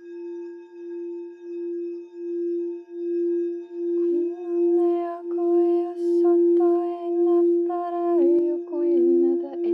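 Frosted quartz crystal singing bowl sounding as a mallet is rubbed around its rim: one steady low tone that swells and fades in a regular pulse and grows louder. From about four seconds in, a woman's wordless singing voice joins it, holding notes and stepping between pitches.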